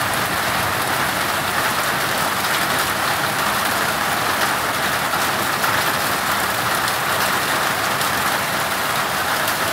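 Steady, heavy rain mixed with small hail coming down, an even hiss of many fine impacts.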